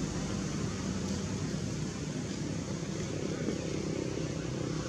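Steady low background rumble of distant motor vehicles.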